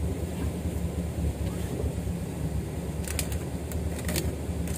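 Suzuki Katana 4x4's engine running steadily at low speed, a low rumble heard from inside the cabin, with a few sharp rattling clicks about three to four seconds in.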